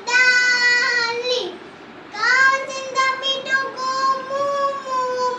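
A child singing a rhyme in long held notes: one phrase lasting about a second and a half, a short pause, then a longer phrase from about two seconds in.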